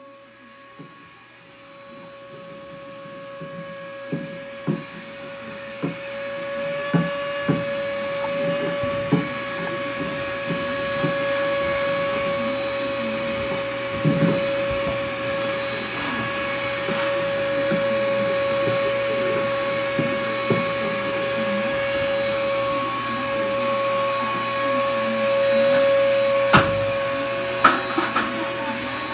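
Vacuum cleaner running with a steady whine over a rushing noise, growing louder over the first ten seconds or so, with a few short knocks and clicks along the way.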